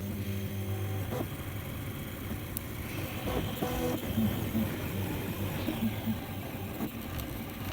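3D printer running a print: its stepper motors hum and whine in short pitched steps that shift as the print head changes moves, over a steady low hum.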